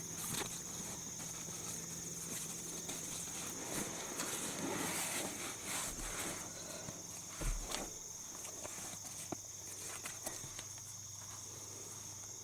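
A steady high-pitched insect chorus, crickets, with scattered soft clicks and rustles that sound like footsteps.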